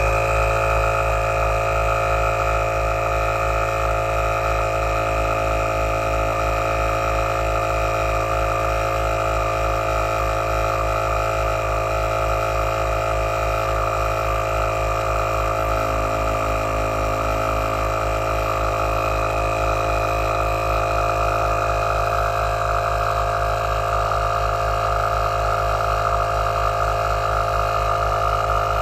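Heyner Big Air 40L 12V piston air compressor running steadily under load with a fast, even pulsing. It is pumping a van tyre up from about 2.5 bar toward 3.5 bar.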